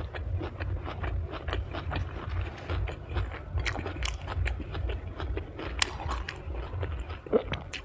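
Close-up chewing of deep-fried kimbap: many small crisp crunches and wet mouth sounds, over a low steady rumble.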